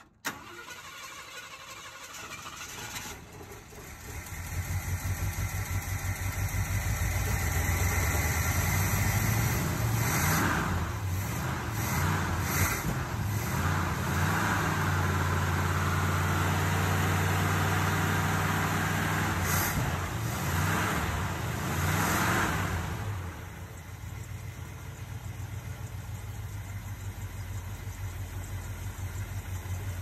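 1969 Ford F250 pickup's engine, fitted with an Edelbrock four-barrel carburettor, cranking and catching about four seconds in. It then runs at raised revs with a few rises and falls in pitch and drops back to a lower idle near the end. The carburettor is tired and due for a rebuild, and the truck does not rev or accelerate well.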